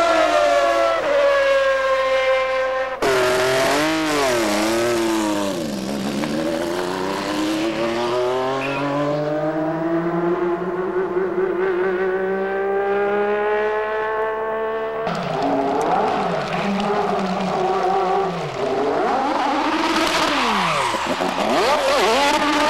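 Honda Formula One engines at racing revs: first the McLaren MP4/6's V12 passing with falling pitch, then the Lotus 100T's turbocharged V6 revving up and down and accelerating with a long rising pitch. Near the end the revs drop quickly and climb again.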